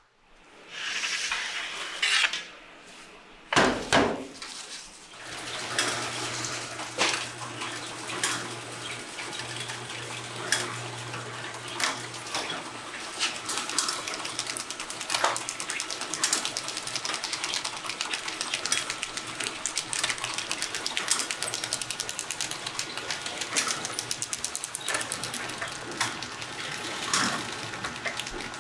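Metallic clatter and knocks, loudest in the first four seconds. Then noodle-packaging machinery runs with a steady low hum and a dense run of small clicks and ticks.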